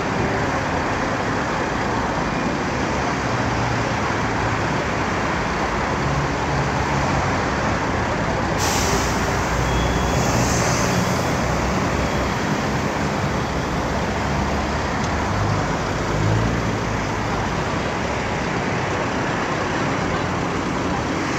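Street traffic noise: a steady rumble of passing vehicles. About nine seconds in, a sharp hiss starts suddenly and lasts about two and a half seconds.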